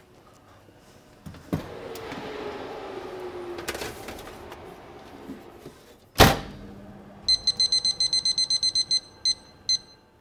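A baking tray loaded into a commercial rack oven, then the oven door shut with a loud thud a little after halfway. A fast run of about a dozen electronic beeps follows from the oven's control panel, then two single beeps near the end, as the 22-minute bake time is set.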